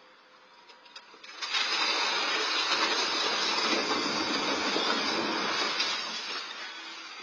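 Brick building collapsing: a sudden loud rush of falling masonry and rubble starting about a second and a half in, running for about four seconds, then tailing off.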